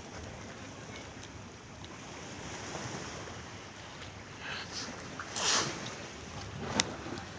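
Sea waves washing against a ferry, a steady rush of water with a louder splash about five and a half seconds in, then a single sharp click.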